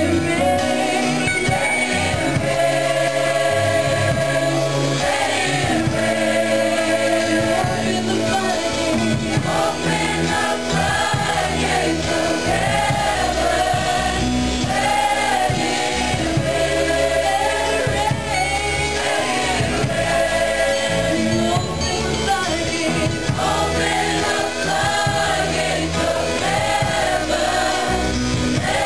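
Gospel worship song sung by two amplified lead vocalists, a man and a woman, with a youth choir joining, over instrumental accompaniment with a steady bass line.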